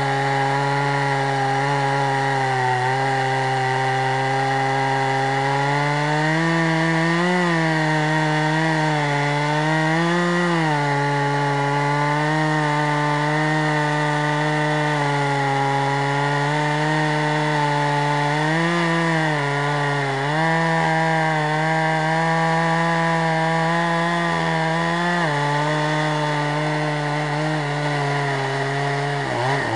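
Stihl 440 two-stroke chainsaw in a chainsaw mill, running at full throttle under load as its chain rips lengthwise through hard water oak. The engine note holds steady, rising briefly in pitch four times as the load eases.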